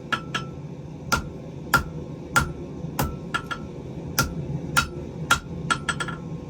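Hand hammer blows on a hot wrought iron bar on an anvil, about one every half second or so, each with a short metallic ring, some followed by quick lighter taps. The iron is being worked at a cooler forging heat so it squishes less, with a steady low hum underneath.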